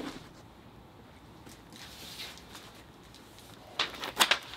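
Quiet room tone, then about four seconds in a cardboard parts box is handled and a paper instruction sheet rustles as it is pulled out of it.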